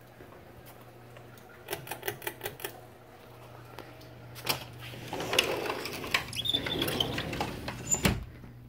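Running ceiling fan's steady low motor hum, with a quick run of light clicks about two seconds in, then a louder stretch of scraping and rustling handling noise that ends in a sharp knock near the end.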